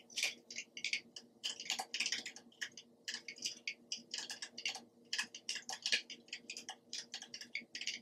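Typing on an ErgoDox EZ split mechanical keyboard: an irregular run of key clicks, several a second, with brief pauses between keystrokes.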